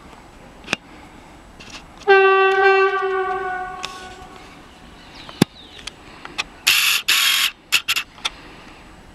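Horn of a Renfe Class 446 Cercanías electric unit sounding one long steady blast of about two seconds that fades away as the train approaches. Several seconds later come a few short, loud bursts of hiss.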